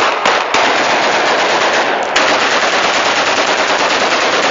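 Celebratory gunfire from rifles fired into the air: a couple of separate shots, then from about half a second in a continuous, rapid stream of automatic fire that does not let up.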